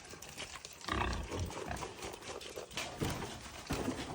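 A pig grunting several times in short bursts.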